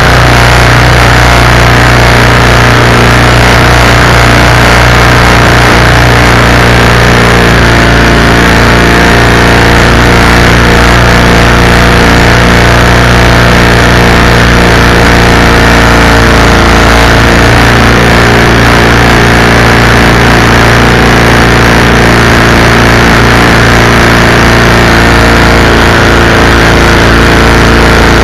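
Predator 212cc single-cylinder four-stroke engine driving a canoe's propeller shaft, running loud and steady at an even speed over a constant rush of wind and water.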